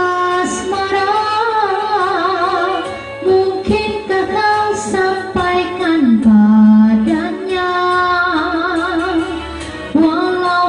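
A woman singing a slow Malay ballad with vibrato over a karaoke backing track with guitar, dropping to a long held low note in the middle.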